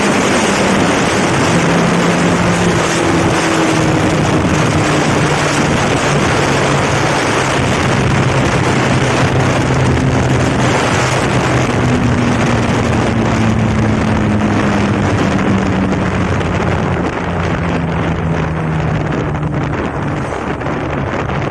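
Benelli TNT 300 parallel-twin engine running through a replacement aftermarket exhaust, its note rising and falling over several seconds, with wind noise on the microphone. The level eases off slightly near the end.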